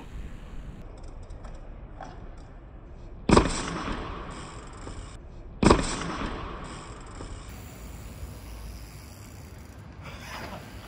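Two sharp impacts about two and a half seconds apart, each trailing off briefly: a street trials mountain bike landing hard from hops.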